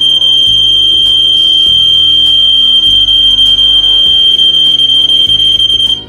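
Aico EI3024 multi-sensor smoke alarm sounding its loud, steady high-pitched test tone after its test button was pressed three times; the alarm is sending its stored data to the AudioLink phone app by sound. The tone cuts off suddenly at the very end.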